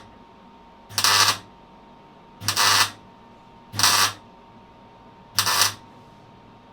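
MIG welder laying short tack welds on a car's steel floor panel: four bursts of crackling arc, each about half a second long, about a second and a half apart. The welds fix the repair floor in place while it is clamped in position.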